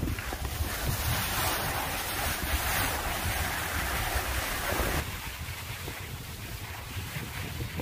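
Wind buffeting the microphone outdoors on a ski slope: a steady rushing noise with a low rumble, which drops abruptly to a quieter hiss about five seconds in.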